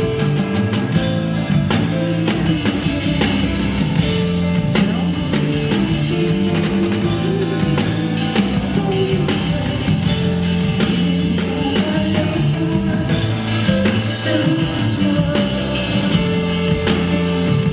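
Live band playing a rock song, with sustained bass and keyboard notes and regular drum hits.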